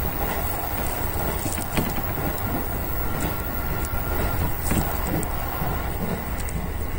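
Electric commuter train running at speed, heard from inside the front cab: a steady rolling rumble from wheels on rail, with a few short clicks.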